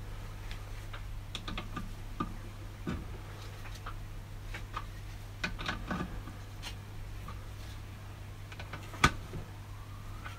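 Ratchet of a 3/8-inch Sealey click-type torque wrench ticking in short irregular runs as the camshaft bearing cap nuts are tightened to 20 Nm, with one louder, sharper click about nine seconds in.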